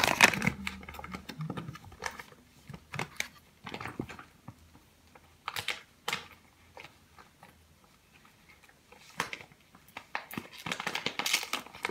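Scattered taps, clicks and rustles of packaging being handled, with quiet gaps between them and a busier stretch of rustling near the end.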